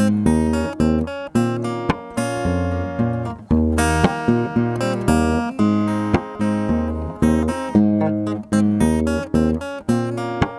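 Background music: acoustic guitar, plucked and strummed in a steady rhythm.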